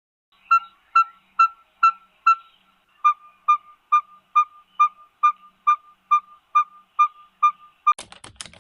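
A bird calling a single clear, piping note over and over, evenly spaced about twice a second, the note dropping slightly in pitch partway through. Near the end a quick run of sharp clicks takes over.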